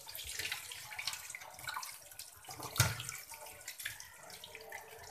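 Tap water running into a stainless steel sink while raw rohu fish pieces are rinsed and rubbed by hand in a steel colander, with splashing and small clicks throughout. A single louder knock comes a little under three seconds in.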